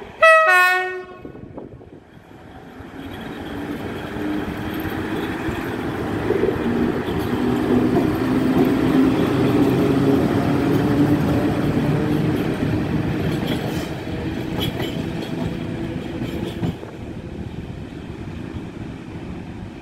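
A short, very loud blast of an electric locomotive's horn, then an ET22 electric freight locomotive pulling away from a stop and passing close: its traction motors hum with a pitch that rises as it gathers speed, and its wheels clack over rail joints before the sound fades as it moves off.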